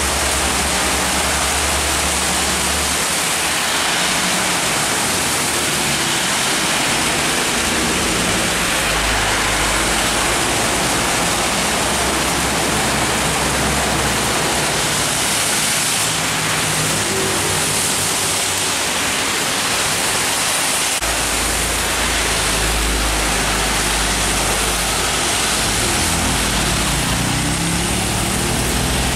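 Heavy rain pouring steadily, with the low drone of passing trucks' diesel engines underneath. Near the end a truck engine climbs in pitch as it accelerates.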